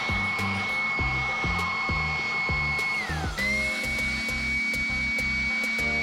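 A hair dryer blows with a steady high whine, drying freshly cleaned bottom bracket parts. About three seconds in, its whine drops and breaks off, then rises back and runs steady again. Background music with a bass line plays throughout.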